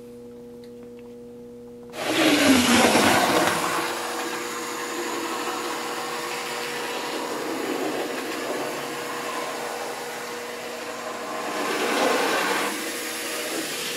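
OO gauge model train running on the layout track, its electric motor and wheels making a steady mechanical running noise that starts suddenly about two seconds in with a falling tone as it passes close, and swells again near the end. A faint steady hum comes before it.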